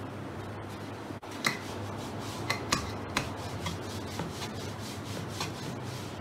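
Wooden rolling pin rolling paratha dough out on a wooden board: a steady rubbing, rolling sound with a few light knocks of the pin against the board.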